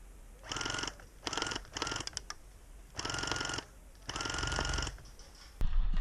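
Airsoft gun firing five short full-auto bursts, each a rapid buzz about half a second long, with a couple of single shots in between. A louder noise starts just before the end.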